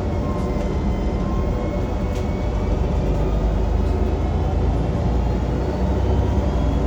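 Transperth bus TP1230 heard from inside the cabin while under way: a loud, steady low engine rumbling with a faint whine above it, growing a little louder about three seconds in. The engine cooling fan is off, so the rumble comes from the drivetrain, not the fan.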